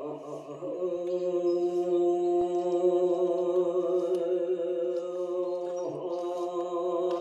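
Korean Buddhist yeombul chanting by a monk: a single voice holds long, steady notes, with a short break about six seconds in.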